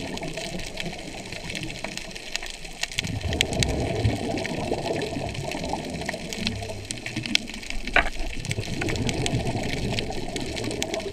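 Underwater ambience heard below the surface: a steady low rush of moving water with scattered sharp clicks and crackles, and one louder click about eight seconds in.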